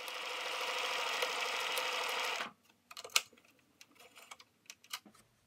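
Bernina 1230 sewing machine sewing a test straight stitch through two layers of fabric: a steady, rapid stitching rhythm that stops abruptly about two and a half seconds in. After that, a few sharp clicks and light rustling as the fabric is pulled out from under the presser foot.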